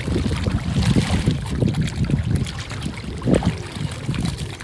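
Shallow water splashing and lapping at a pebble shore as mute swans dip their bills for food, over a constant low, uneven rumble.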